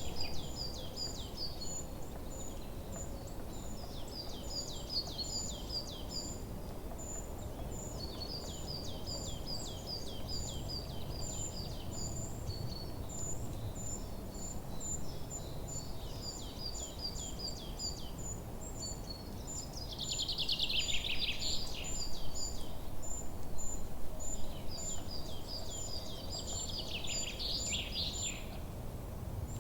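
Forest birdsong: birds repeating short phrases of quick falling notes every few seconds, with two louder sweeping trills in the second half, over a steady run of very high, evenly spaced chirps and a low, even background rumble.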